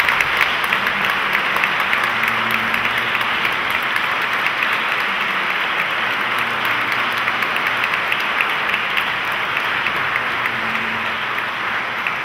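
Large audience applauding steadily, a dense patter of many hands clapping, beginning to die away near the end.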